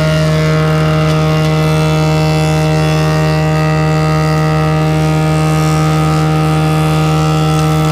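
Restored stationary woodworking machine, an old jointer or thickness planer, with its electric motor and cutterhead running at a steady pitch: a constant low hum with several steady higher tones above it.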